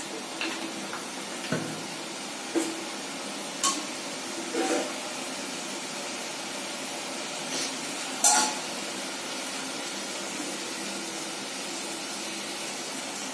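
Steel kitchen utensils clinking and clanking against a pressure cooker and bowl during cooking: about eight short sharp knocks, the loudest about eight seconds in, over a steady low hiss.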